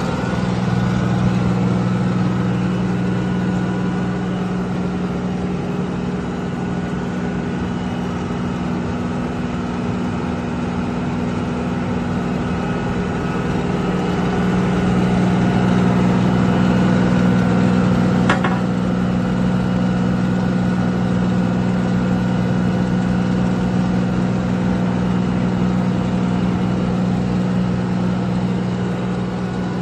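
Diesel engine of a 2005 Wirtgen W1200F cold planer running steadily at a low, even speed, swelling a little in loudness about halfway through. A single brief sharp click comes about 18 seconds in.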